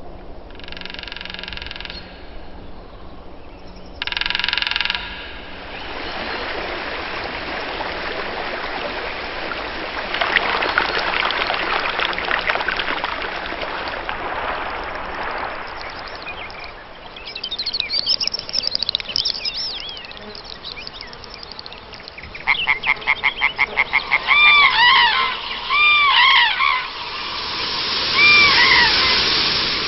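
Waterbirds calling: a fast run of pulsed calls, then a series of short honking calls that rise and fall in pitch, the loudest sounds, near the end. Earlier come two short buzzy tones and a long steady rushing noise.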